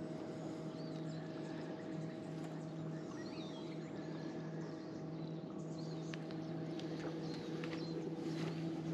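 Small birds chirping and calling here and there over a steady low motor hum, with a few light clicks.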